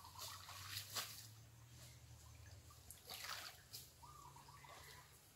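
Faint splashing and sloshing of shallow stream water as someone wades through it, in two short bursts, about a second in and about three seconds in.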